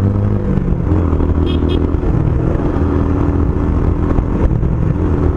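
Motorcycle engine running steadily under the rider at about 55 km/h, its pitch shifting about half a second in, over wind and road noise. Two short high chirps come about a second and a half in.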